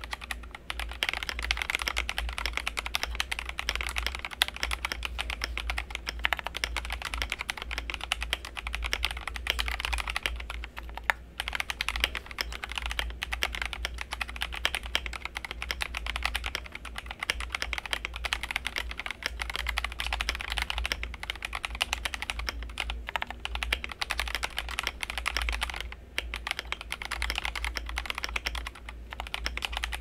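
Continuous fast typing on a GMMK Pro mechanical keyboard fitted with NovelKeys Silk Milkshake linear switches and ASA-profile PBT keycaps: a dense stream of key clacks, with brief pauses about 11 and 26 seconds in.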